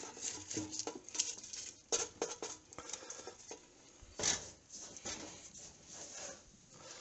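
Silicone basting brush scraping and dabbing spice paste around a bowl and onto a whole chicken: irregular small taps and scratchy scrapes, the loudest about four seconds in.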